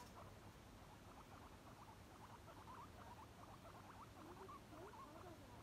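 Guinea pigs making faint, soft squeaks: many short calls in quick succession, with a few lower, gliding calls about four seconds in.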